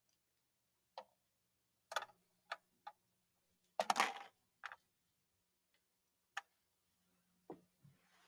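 Quiet, irregularly spaced light knocks and clicks, about eight in all, with a slightly longer one about four seconds in.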